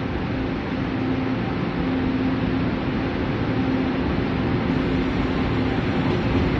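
Taiwan Railways electric local train approaching, a steady rumble with a hum that grows slowly louder.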